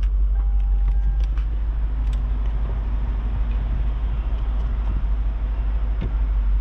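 2002 Lexus SC430's electro-hydraulic retractable hardtop starting its closing cycle, its rear deck lid opening: a steady mechanical hum with a few light clicks, and a brief steady tone about a second in.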